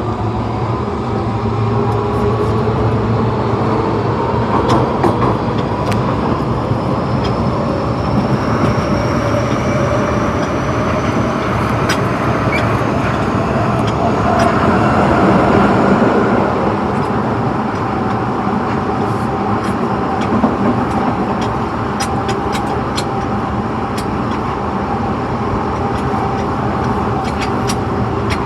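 Osaka Metro Tanimachi Line Series 22 subway car running: a high-pitched whine from the traction motors rises in pitch over the first several seconds as the train gathers speed, then holds steady over the running rumble. Sharp clicks come through the second half.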